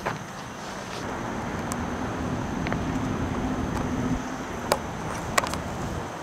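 A motor vehicle running, heard as a steady rumble with a faint hum that stops about four seconds in; two sharp clicks come near the end.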